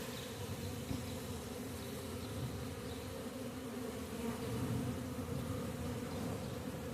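Honeybee colony buzzing steadily, a mass of bees in an opened hive.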